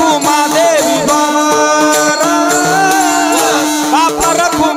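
Marathi devotional kirtan music: a sliding, ornamented melody over a steady drone, with jingling percussion keeping time.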